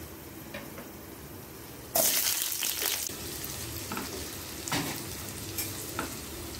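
Sliced onions dropped into hot oil with frying cashews and cloves in a nonstick kadai, setting off a sudden loud burst of sizzling about two seconds in that settles into steady frying. A silicone spatula stirring the onions adds a few light taps and scrapes.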